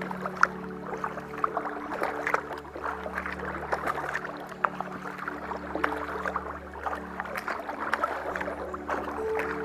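Kayak paddle strokes: the blades dipping and splashing on alternate sides, with water dripping and trickling off them in many small, sharp splashes.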